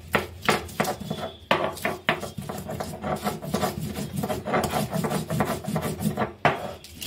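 Stone batta rubbing and crushing green chillies, ginger and garlic on a sil grinding stone: stone scraping on stone in quick repeated strokes.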